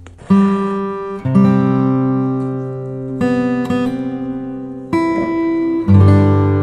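Acoustic guitar playing slow chords: five chords struck in turn, each left to ring out and fade before the next.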